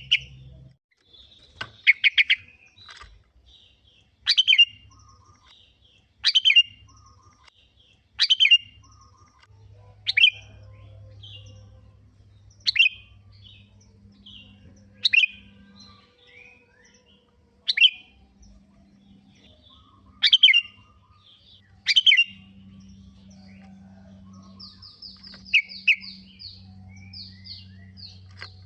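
Sooty-headed bulbul (kutilang) singing: a short, loud, falling phrase repeated about every two seconds, with softer twittering between, and a quick run of high notes near the end.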